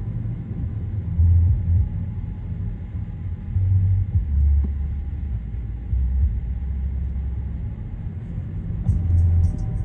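Low, steady road and engine rumble heard inside a moving car, with uneven swells in the deep bass.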